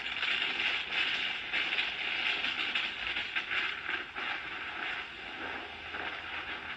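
Hurricane wind blowing hard: a dense rushing noise with rapid rattling and scraping in it.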